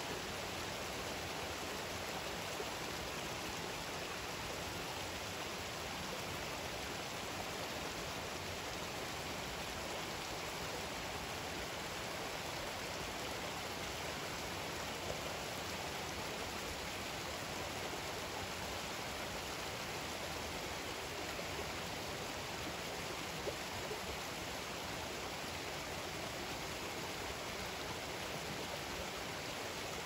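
Small mountain creek running over rocks, a steady rushing of water.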